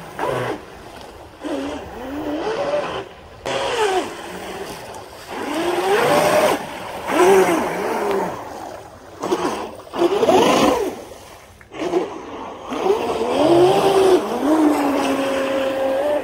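RC speedboat's TP4070 brushless motor whining as the boat runs across the water, its pitch rising and falling with the throttle in repeated bursts, with short drops where the throttle comes off.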